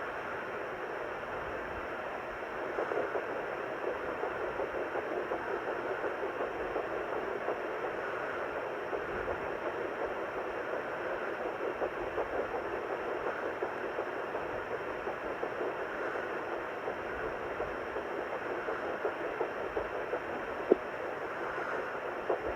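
Handheld fetal Doppler hissing through its speaker, with the rapid pulse of an 8-week fetal heartbeat in the static. There is one sharp click near the end.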